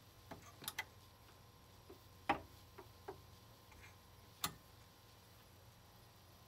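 Several short, sharp clicks and light clunks from the tonearm and cue lever of a Technics SL-1500 direct-drive turntable being worked by hand as the arm is moved off its rest and over the platter. The loudest click comes a little after two seconds in, and another sharp one comes about four and a half seconds in.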